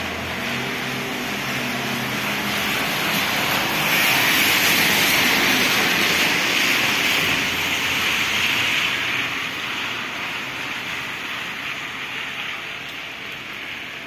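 Street traffic on wet asphalt: the tyre hiss of a passing vehicle swells about four seconds in and fades away by about ten seconds.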